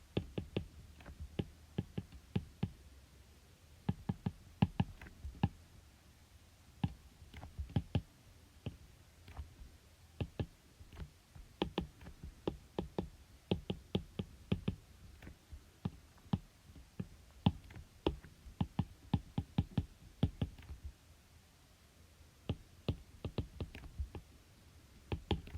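Keys being tapped in irregular runs of sharp clicks, with pauses of a second or two between runs, over a faint low hum.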